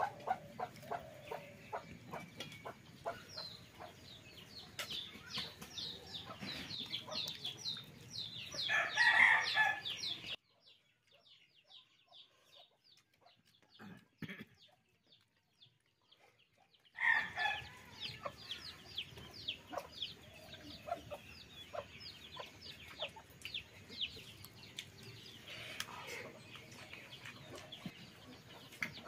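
Chickens clucking, with a rooster crowing and many quick high chirps; a louder call comes about nine seconds in, then the sound drops almost to silence for about six seconds before the calls resume.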